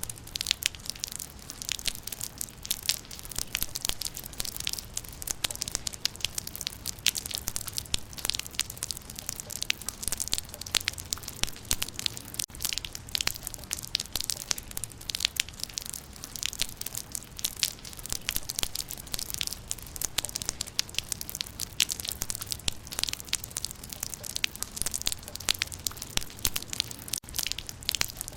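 Rain falling on leaves: a dense, steady patter of many small sharp drop impacts, mostly high-pitched, over a faint low rumble.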